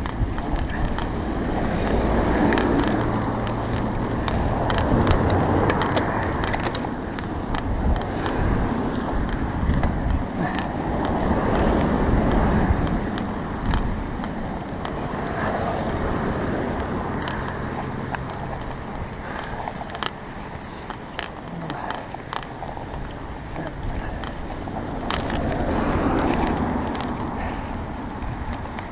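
Bicycle riding over a fresh-snow-covered road: the tyres hiss and crunch through the snow, with wind noise on the action camera's microphone rising and falling every few seconds and scattered small clicks and knocks from the bike.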